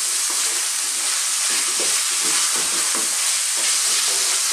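Chicken strips, onion and carrot sizzling steadily in hot oil in a wok on high heat, with a wooden spatula stirring and scraping through the food in short irregular strokes.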